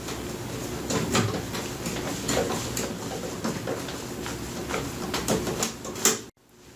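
Screws being driven to fasten a hinge onto an oven door: irregular metal clicks and knocks over a low steady whir, cutting off suddenly near the end.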